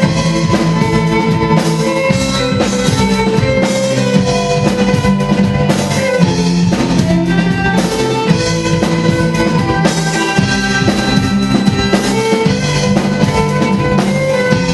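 Symphonic orchestra with a rock drum kit playing an orchestral arrangement of a rock song: a steady drumbeat under held notes.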